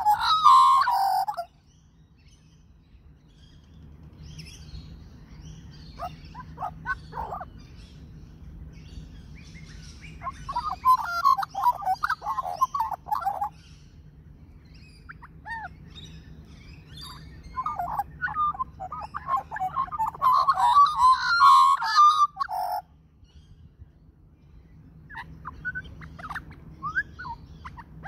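Australian magpie singing: several bursts of warbling, gurgling song separated by short pauses, the longest and loudest about two-thirds of the way through. A faint low rumble runs underneath.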